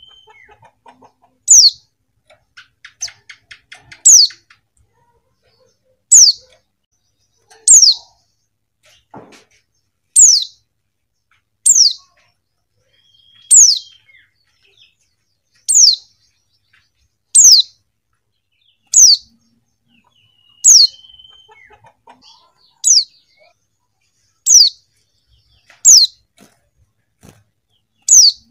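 Female white-eye (pleci) calling: a short, high, sharply falling note, repeated over and over about every one and a half to two seconds.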